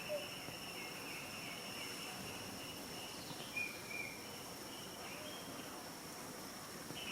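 Insects chirring steadily in the background: a continuous high tone with a wavering band below it that breaks off and resumes, plus a couple of brief faint knocks.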